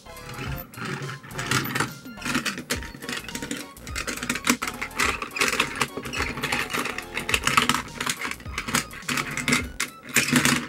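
Die-cast toy cars handled on a plastic playset: a run of irregular clicks, rattles and knocks of metal toys rolled, picked up and set down on hard plastic.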